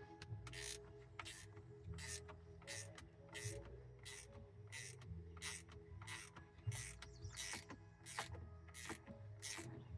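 Ratcheting hand tool worked in short repeated strokes, about one and a half to two a second, with faint steady background music.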